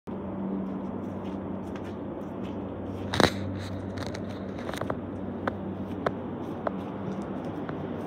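A fan running with a steady low hum and a whoosh of moving air. Several sharp clicks sound over it, the loudest about three seconds in.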